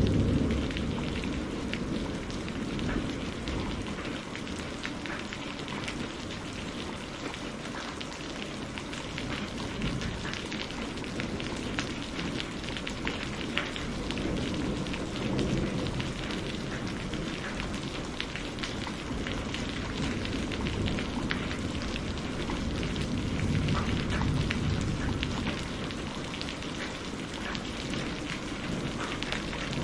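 Steady heavy rain with thunder rumbling low. A loud rumble dies away in the first couple of seconds, and softer rumbles swell about halfway through and again later on.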